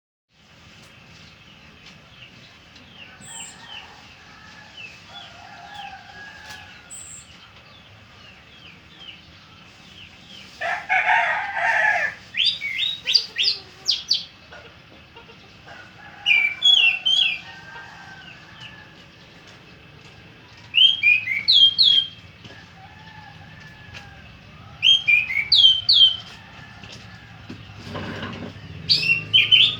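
Orange-headed thrush singing: short bursts of rapid, clear, sweeping whistled notes, repeated about every four seconds from about twelve seconds in. Just before the first burst comes a louder, harsher call, and faint quick chirps from other birds run through the first ten seconds.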